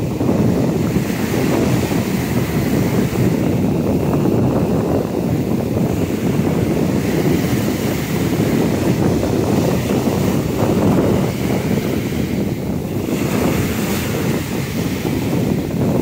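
Ocean surf breaking and washing up the beach, mixed with wind buffeting the microphone in a steady rough rush.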